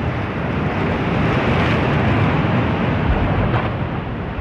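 Sea surf washing onto a beach: a steady rushing noise that swells in the middle and eases off near the end.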